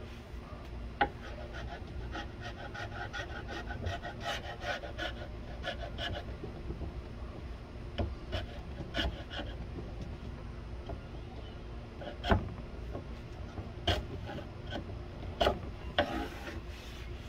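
Steel hand scraper dragged across a wooden board in repeated, irregular strokes, a few of them sharper and louder, scraping off old glue that a sander was slow to cut.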